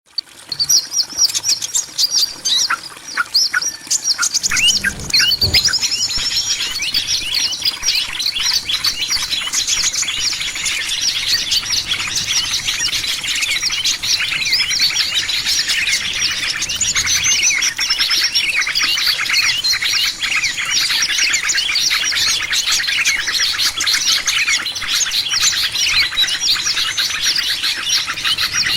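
Many small birds chirping, used as a lure call for small birds. A few separate chirps at first. From about five seconds in it becomes a dense, continuous chatter of many birds at once. A brief low thump comes just before the chatter thickens.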